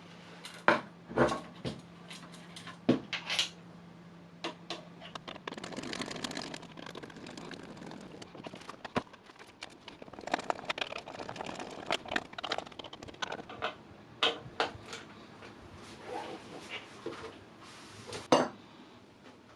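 Irregular clicks, knocks and light metallic clatter of small parts and tools being handled on a workbench. A faint steady hum runs underneath and stops about five seconds in.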